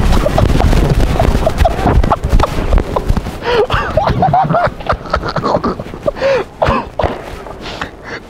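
Wind buffeting the microphone during a run on foot, with footfalls, for the first few seconds. From about three seconds in come short, brief vocal sounds from people on the street, along with scattered steps.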